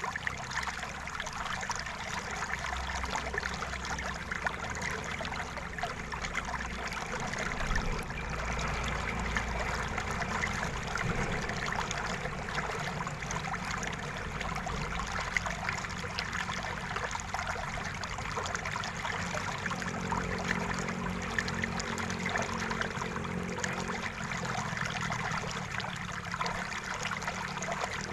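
River water flowing steadily, a continuous trickling stream sound.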